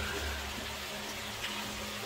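Water sloshing and lapping as someone wades slowly through still water in a flooded tunnel, with a low rumble of movement in the first half second.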